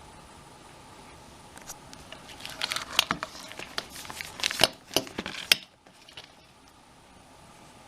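Pages of a three-ring chipboard collage journal being handled and turned: papery crinkling with sharp clicks and taps, starting about a second and a half in and stopping abruptly near six seconds.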